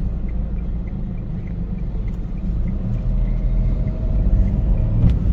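Car on the move: a low, steady rumble of engine and road noise, growing louder toward the end.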